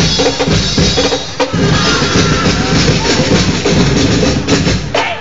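Dinagyang festival drum music: a percussion ensemble of drums playing a dense, driving beat, loud and heard through a mobile phone's microphone.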